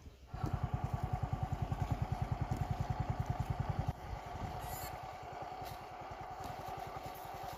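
An engine running with a steady fast beat, about a dozen pulses a second, dropping in level about four seconds in.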